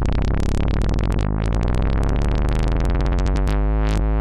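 Moog Werkstatt-01 analog monophonic synthesizer playing a deep bass tone with fast pulsing modulation. A little over a second in the tone shifts, and from about three and a half seconds it settles into a regular wobble of about four pulses a second.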